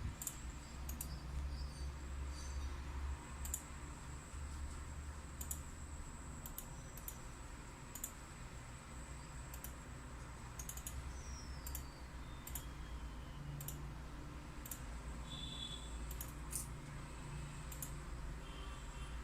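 Computer mouse clicking in single, irregular clicks, about one a second, over a steady faint high-pitched whine and low hum.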